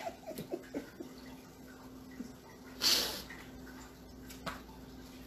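A quiet pause over a steady low hum, broken by a short breathy exhale about three seconds in and a light click near the end.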